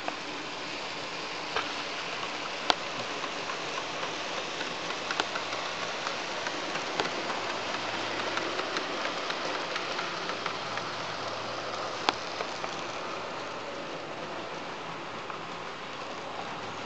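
Model railway trains rolling along the track: a steady metallic rattle of small wheels on rail, with irregular clicks over rail joints and a few sharper clicks. A low hum comes in about halfway through.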